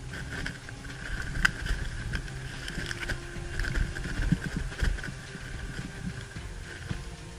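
Footsteps and rustling on a forest floor of pine needles and brush, heard through a body-worn camera as uneven low thumps and handling rumble, with a sharp snap about a second and a half in.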